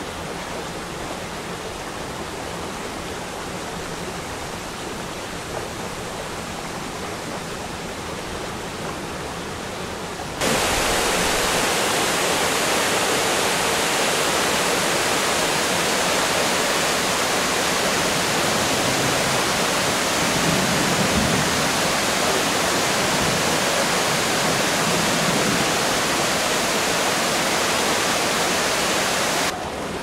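A 30-metre waterfall falling in a walk-in aviary: a steady rush of water. About ten seconds in it jumps louder and fuller.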